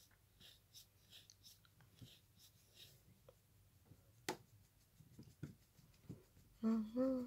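Faint scratching and rustling of a long-haired Chihuahua pawing at its fabric cushion and blanket bed, with one sharp tap about four seconds in and a few soft knocks after it. Near the end a voice hums or speaks briefly.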